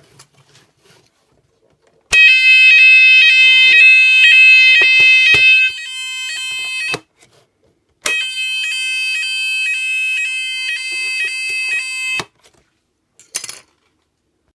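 Battery-powered Type 4 fire alarm sounder giving its evacuation signal: a high-pitched, rapidly repeating electronic tone pattern in two bursts of about five and four seconds, a second apart. The first burst drops sharply in level partway through. Faint clicks come before and after the bursts.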